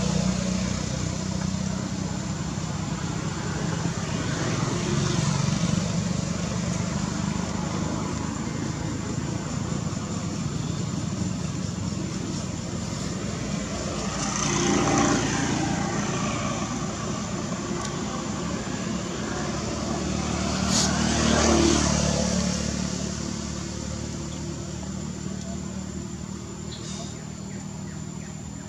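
Outdoor background of motor traffic: a steady low engine hum, with vehicles passing louder and fading away about halfway and again about three-quarters of the way in, and voices in the background.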